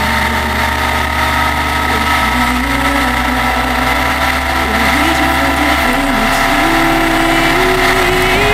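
Honda CBR1100XX Super Blackbird's inline-four engine running under way, with wind and road noise; the engine pitch climbs steadily through the second half as the bike accelerates.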